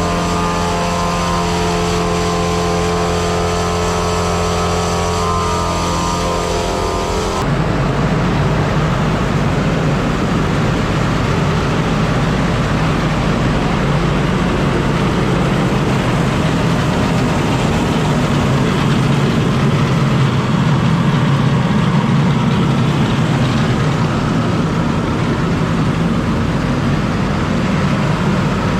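A farm tractor engine running steadily. About seven seconds in it changes abruptly to a rougher, louder engine and machinery sound.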